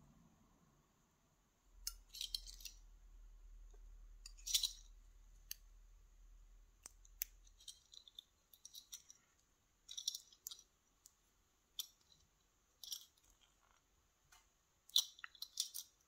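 Irregular sharp metallic clicks and clinks of a brass 7-pin Sargent lock cylinder being handled, key in the plug, as the plug is worked out of the cylinder to gut it. A low rubbing noise runs through the first half.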